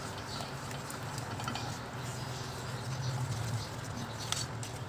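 Wire whisk stirring thick white sauce in a metal pan: a soft, steady patter with a few sharp clicks of the whisk against the pan.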